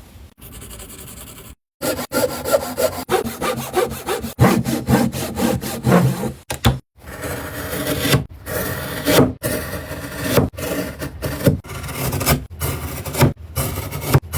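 A saw cutting through wood, with rough, rapidly repeating strokes. The sound drops out abruptly about two seconds in and again near seven seconds, as if separate cutting clips are joined together.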